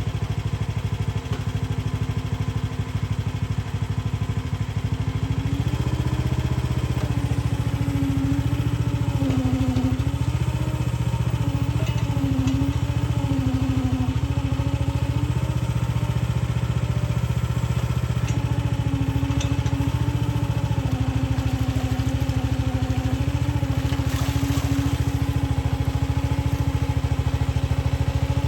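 Chinese mini excavator's small engine running throughout, stepping up in speed about six seconds in. Its pitch then sags and recovers over and over as the digging loads the hydraulics, with a few faint clanks.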